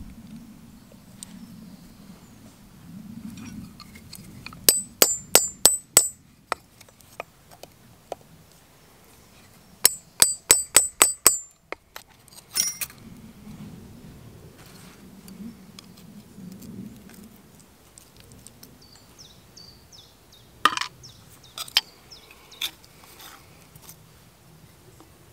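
Hammer blows on a chisel held against a copper strip on an anvil, cutting out a Thor's hammer pendant shape. Two quick runs of six or seven blows with a high metallic ring come about five and ten seconds in, then a single blow and a few lighter taps near the end.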